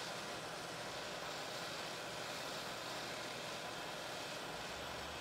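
Hot air rework gun of a Yihua 853D station blowing steadily, a constant rush of air from its fan. It is heating a surface-mount chip on a circuit board to melt the solder, and the chip has not yet come loose.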